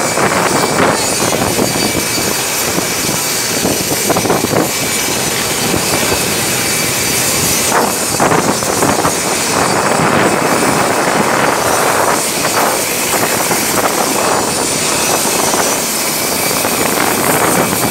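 Aircraft engines running, a steady rushing roar with a faint high steady whine, mixed with uneven gusts of wind on the microphone.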